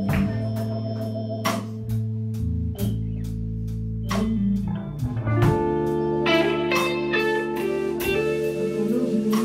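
Live electric blues band playing an instrumental passage: electric guitars, bass guitar and drum kit, with regular cymbal strikes over sustained bass notes. A higher lead line of held notes comes in about halfway through.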